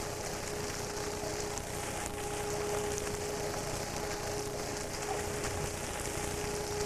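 A steady hiss with a constant hum under it.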